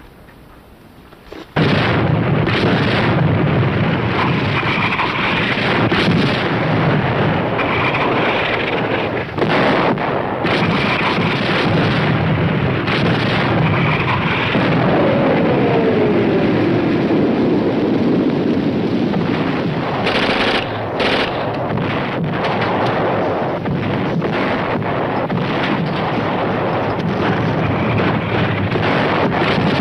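Sustained battle noise of gunfire and explosions, starting abruptly about a second and a half in and running on densely, with a falling tone about halfway through.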